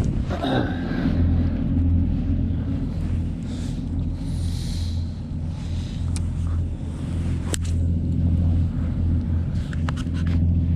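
Steady low engine hum, with a sharp click about seven and a half seconds in.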